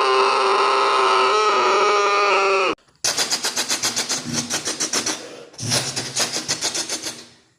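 A person mimicking a train with the voice. It opens with a long, steady horn-like note that stops abruptly under three seconds in. Then come two runs of rapid chugging bursts, about five a second, imitating the train running, with a short break between them.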